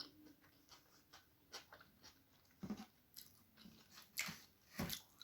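A person chewing a mouthful of egg chow mein close to the microphone: faint, irregular wet mouth clicks and smacks, several of them a second or less apart.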